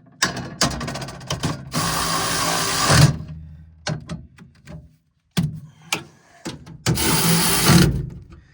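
Cordless power tool run in bursts, working fasteners on a combine harvester: two runs of about a second and a half near the start and another near the end, with short clicks and knocks between.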